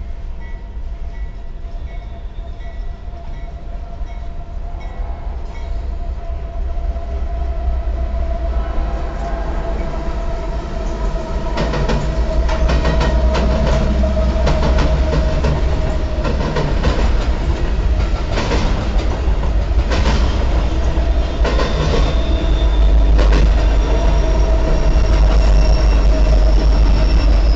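Freight train rolling past on the rails: a steady rumble with a thin steady whine, and a bell ringing at an even pace for the first five seconds or so. From about twelve seconds in it gets louder, with rapid clickety-clack of wheels over the rail joints as an intermodal train of stacked containers and trailers goes by.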